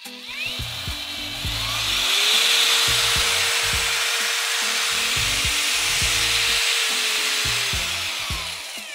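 Parkside PFMRA 20-Li A1 cordless paddle mixer running: the motor spins up over about two seconds, runs at a steady high whine with a loud rushing noise for several seconds, then winds down near the end.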